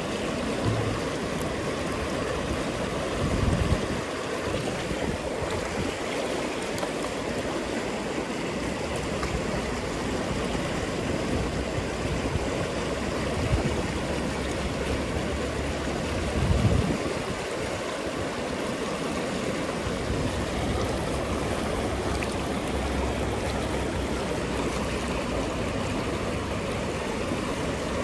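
River water flowing steadily, a constant rushing hiss, with two short low bumps at about a quarter and about halfway through.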